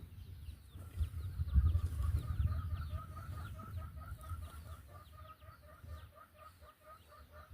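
Chickens clucking in a steady, even rhythm, with small birds chirping high above them. A low rumble underneath is loudest about two seconds in.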